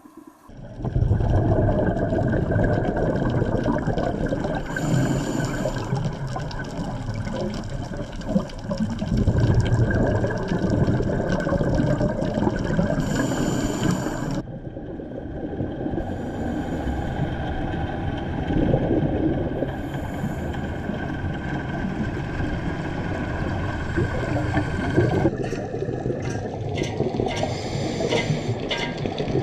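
Rushing, gurgling water noise. It changes abruptly about halfway through and again near the end.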